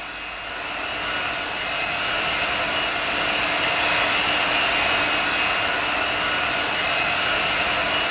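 F-22 Raptor's jet engines running: a steady rushing noise with a high whine, growing louder over the first two seconds and then holding steady.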